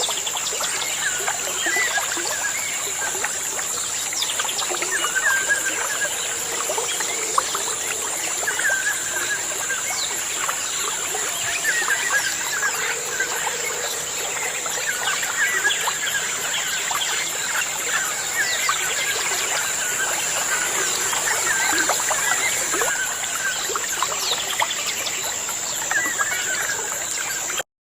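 Many birds chirping and twittering in quick, overlapping short calls over a steady rushing hiss and a continuous high-pitched whine; the sound cuts off abruptly near the end.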